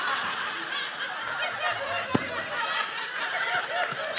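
Studio audience laughing, a spread of many overlapping chuckles and laughs that slowly dies down. A single sharp tap sounds about two seconds in.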